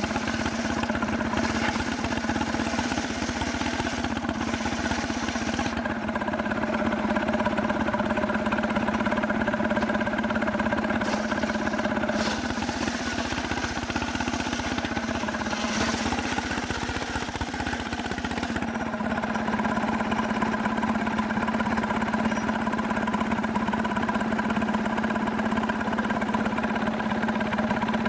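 Stihl two-stroke chainsaw running steadily at high speed with an even, unbroken note, as it mills a log of very hard cemara wood.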